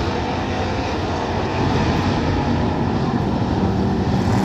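A pack of hobby stock race cars running on a dirt oval: a dense, steady drone of several engines at once, a little louder from about one and a half seconds in.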